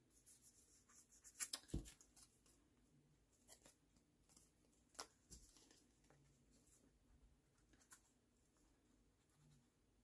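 Near silence with a few soft taps and rustles of card stock being handled on a craft mat: a quick cluster of taps about a second and a half in, and single taps around five and eight seconds.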